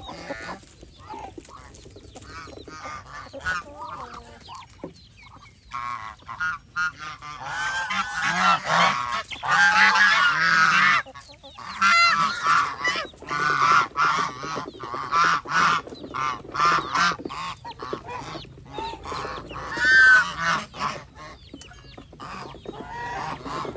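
A flock of Chinese geese honking, several birds calling over one another. Scattered calls build into a loud, dense chorus about a third of the way in, then thin out, with one loud honk near the end.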